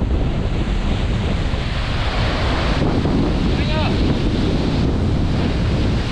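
Strong wind buffeting the microphone: a steady rushing noise, heavy in the low end. A brief, faint chirping call sounds about halfway through.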